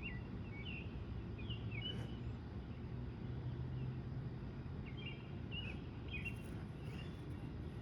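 A bird chirping in two short runs of quick notes, one at the start and one about five seconds in, over a steady low background rumble.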